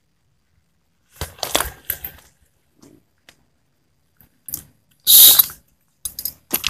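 Footsteps crunching and shifting on loose broken stone chips, in a few irregular bursts starting about a second in, the loudest a little past the middle, with fragments clinking underfoot.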